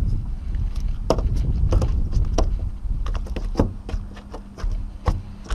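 A small jack flopping on a boat's fibreglass deck: irregular slaps and knocks, about eight in all, over a steady low rumble of wind on the microphone.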